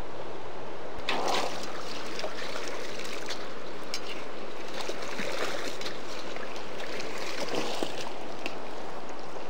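River water rushing steadily, with a few brief louder noises and clicks over it, about a second in, midway and near the end.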